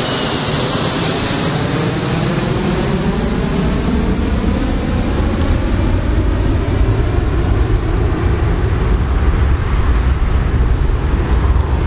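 Jet engines of a four-engined airliner running at high power as it climbs away. Their whine falls in pitch and fades over the first few seconds, while a deep rumble builds toward the end.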